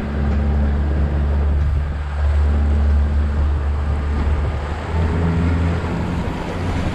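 Tour boat's engine running steadily under way, a low hum over the rushing wash of water along the hull; the engine's tone shifts slightly about five seconds in.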